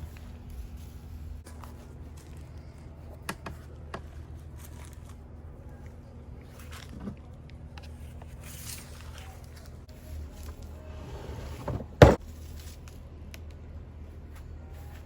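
Scattered knocks and clicks over a steady low hum, with one loud thump about twelve seconds in.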